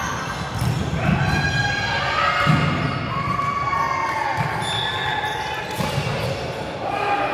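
A volleyball rally in a sports hall: the ball is struck and lands with several sharp thumps, while players call out over the echoing room.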